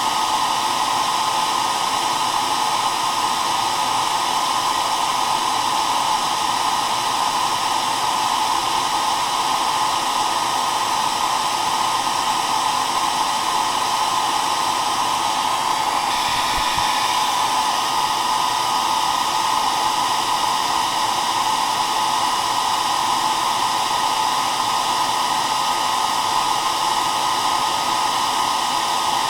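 Hair dryer running steadily: an even rush of blown air with a strong hum near the middle of the range and faint steady whine tones above it. There is one brief soft low bump about two-thirds of the way through.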